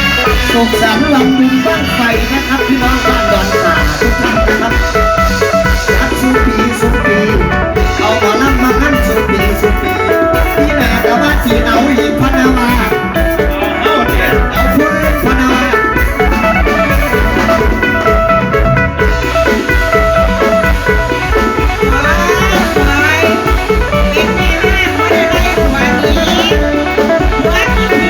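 Loud live Isan folk music: a plucked lute over a steady drum beat, played without a break.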